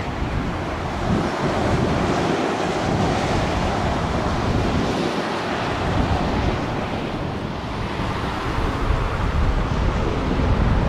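Wind buffeting the microphone in an uneven, gusty rumble over the steady noise of an airBaltic Airbus A220-300 taxiing past on its Pratt & Whitney geared turbofans.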